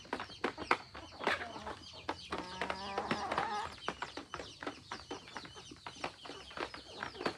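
Chickens clucking, with one longer pitched hen call from about two to three and a half seconds in, over many short sharp clicks.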